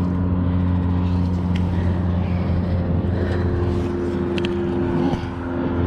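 An engine running steadily, a low droning hum, with a second, higher tone joining about halfway through.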